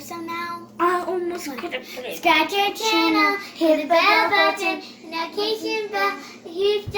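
A child singing in several short phrases, the high notes held and bending up and down between brief breaks.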